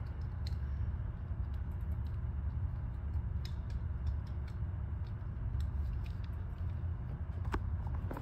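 Steady low background rumble with scattered faint light clicks and taps.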